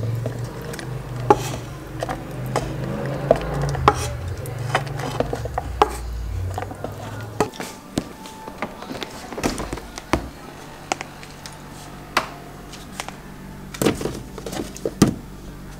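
Wooden spatula scraping and knocking against a wok as stir-fried ground beef is pushed into a plastic food container. This is followed by plastic container and lid handling and a refrigerator door being opened, heard as a run of irregular clicks and knocks.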